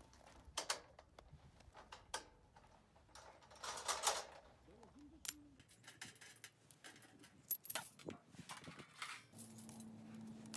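Light metal clinks, taps and a scrape as a stainless-steel mesh fire pit is taken apart by hand: threaded rods, nuts and a flat steel plate knocking against each other and against the perforated basket.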